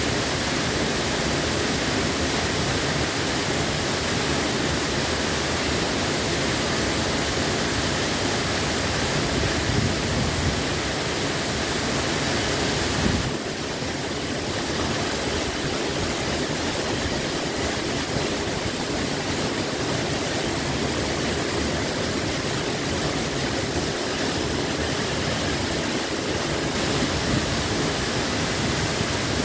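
Tall mountain waterfall pouring down a rock face into a pool: a steady, loud rush of falling water, briefly a little quieter about thirteen seconds in.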